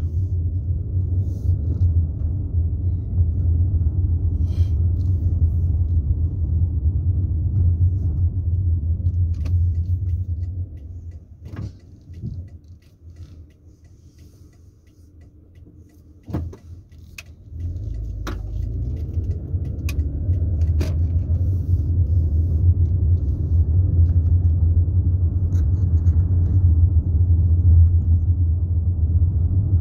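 Car cabin noise from a moving car: a steady low rumble. It falls quiet for about seven seconds around the middle, then rises again. A few sharp clicks sound during the quiet stretch.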